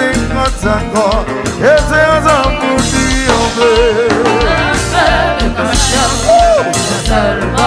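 Upbeat dance music with a singer's voice over a steady bass line and drum beat.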